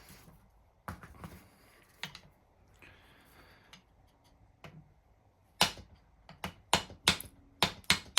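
Small hammer tapping on metal vise parts to knock a piece loose. A few isolated taps come first, then a quick run of about a dozen sharp taps in the last few seconds.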